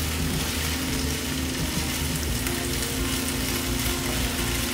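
Green beans and red onions sizzling in olive oil in a skillet, a steady sizzle as they are stirred and turned with tongs.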